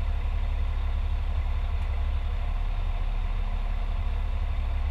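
Fire truck's diesel engine idling steadily, a deep even hum heard from inside the cab.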